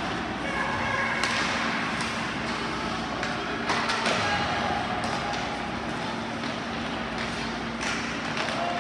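Ice hockey game sound in an arena: a few sharp knocks of sticks and puck over a steady hum and distant crowd voices.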